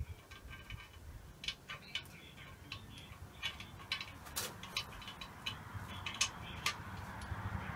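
Ural motorcycle engine tappets being pushed into their bores in the crankcase one after another: irregular light metallic clicks and taps.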